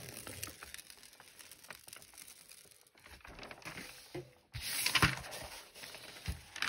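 Clear plastic film on a rolled diamond painting canvas crinkling and rustling as the canvas is handled and unrolled, faint at first and louder from about two-thirds of the way in.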